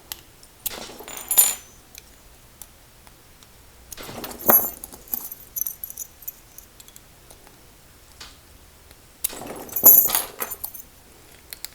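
Bunch of metal keys on a ring jangling in three short bursts, as keys are sorted through and tried against the padlock to find the right one.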